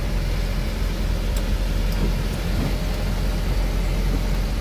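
Mitsubishi Canter truck's diesel engine running steadily while driving, with a low, even hum and road noise heard from inside the cab.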